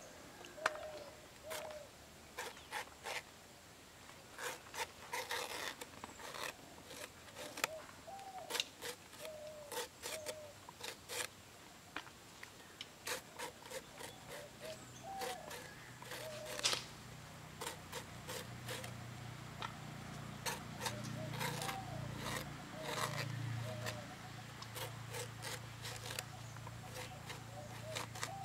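Knife blade slicing and scraping through a banana flower heart held in the hand: many crisp, irregular cuts. Faint short chirps sound between them, and a low drone comes in about halfway.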